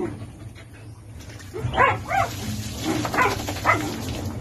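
A dog, a young Belgian Malinois, giving about five short high-pitched cries while water splashes from a poured dipper, starting about a second in.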